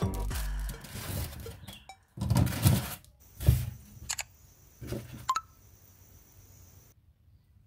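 Toy packaging and plastic pieces being handled: a few short rustles and light plastic clicks, fading out to quiet for the last few seconds.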